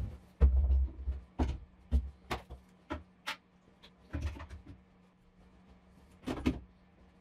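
Cordless power tools and a tool case being set into a plywood wall rack: a string of irregular knocks and clacks of hard plastic on wood, with a heavier thud about half a second in and a last pair of clacks near the end.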